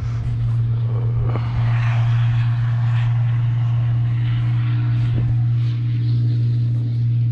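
A steady low mechanical drone holds one constant pitch under a rushing hiss like wind, with a couple of light knocks.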